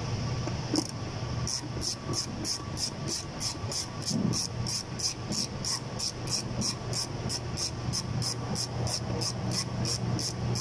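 Socket ratchet wrench worked back and forth on a bolt in the engine bay, giving an even, quick zip-zip of ratchet clicks about three to four strokes a second, over a steady low hum.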